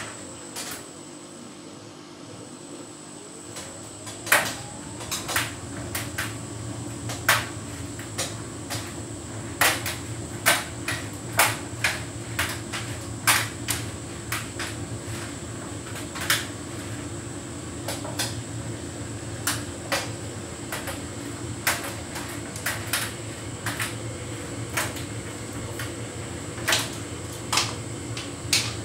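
Hotpoint heat pump tumble dryer running: a steady motor and compressor hum with a high whine, and irregular knocks and clicks of the laundry tumbling in the drum, starting about four seconds in.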